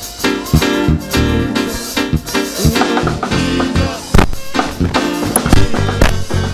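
Live gospel band music with drums, bass and guitar playing an upbeat groove with a steady beat.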